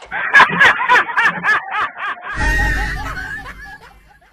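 A person laughing hard in quick, rhythmic bursts, then a second stretch of laughter over a low rumble that trails off near the end.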